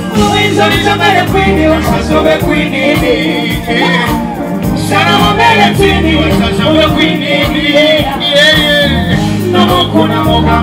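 A singer performing live into a microphone over a loud backing track with a steady bass and beat, played through a concert PA.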